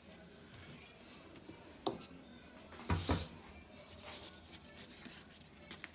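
Wooden rolling pin knocking on a kitchen worktop: one sharp knock about two seconds in, then a louder double knock about a second later, over faint rubbing of hands pressing dough flat on a plastic board.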